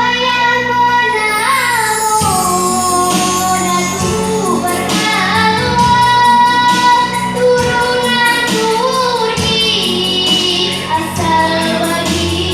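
A child singing a melody solo over a musical accompaniment with a steady beat, holding and sliding between notes.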